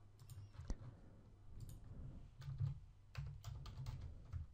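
Faint computer keyboard typing: short, irregular key clicks in small runs as a line of code is entered, over a low hum.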